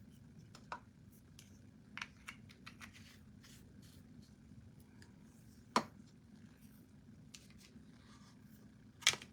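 Scattered light clicks and taps of small objects being handled on a work table, with two sharper clicks, one about six seconds in and one near the end, over a faint steady low hum.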